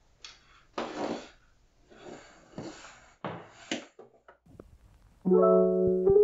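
Cables and a plastic power adapter being handled and dragged about under a desk, in a few short bursts of rustling and scraping. About five seconds in, a soft piano melody starts up as background music and is the loudest sound.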